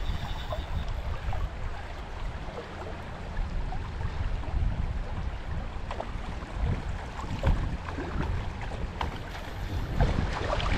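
River current running over rocks and around the wader, with wind rumbling on the microphone and a few small sharp clicks or splashes.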